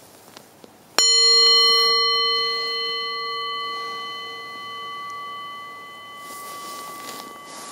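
A small meditation bell struck once about a second in, then ringing on with a clear tone of several overtones that slowly fades.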